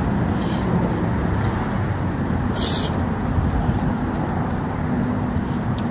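Steady low rumble of a running motor vehicle, with a brief hiss about two and a half seconds in.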